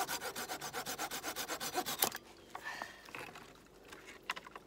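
Hand saw cutting through a thin branch with quick, even back-and-forth strokes, about eight a second, stopping abruptly about two seconds in. A few light knocks of wood being handled follow.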